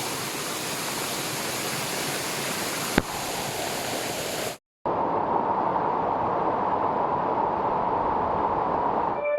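Waterfall's falling water rushing steadily. A sharp click comes about three seconds in. Just past halfway there is a brief dropout, after which the rushing water sounds duller.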